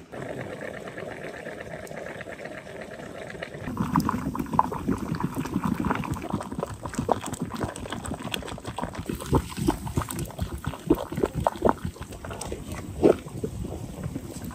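Water boiling hard in a large pot around sealed glass jars of fish cooking in a water bath, with busy, irregular bubbling and popping from about four seconds in. The start is quieter and steadier.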